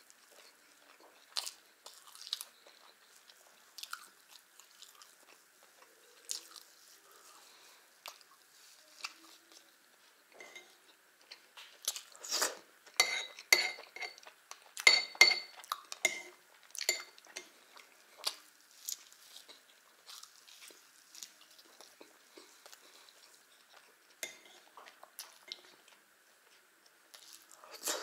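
Close-up eating sounds: mouth-chewing of pancakes with soft clicks, and a metal spoon scraping and clinking against a ceramic jam saucer. A run of louder, ringing clinks comes about halfway through.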